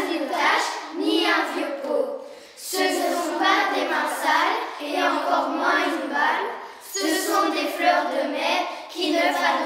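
A class of young children singing together in unison. They sing in phrases, with a short pause about two and a half seconds in and another about seven seconds in.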